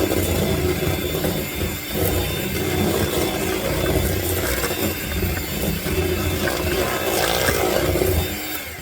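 Electric hand mixer running steadily in cake batter, beating in the red food colouring, then switched off shortly before the end.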